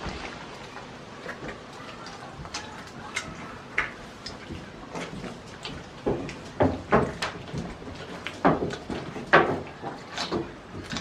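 Goat kid chewing a red treat with its mouth open, giving irregular wet crunches a few times a second. The crunching grows louder and closer together about halfway through.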